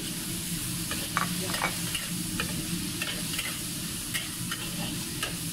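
Beef and bell peppers sizzling in a wok while a metal spatula stir-fries them, its blade scraping and clacking against the wok a dozen or so times from about a second in.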